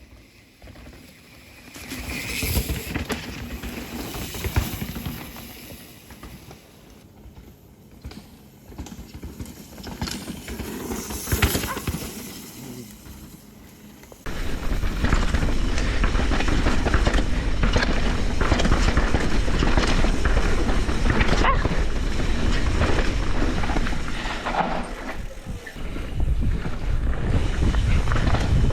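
Mountain bikes riding a rooty dirt trail: tyre and trail noise swells and fades several times in the first half. About halfway it switches suddenly to a steady loud rumble with wind on the microphone.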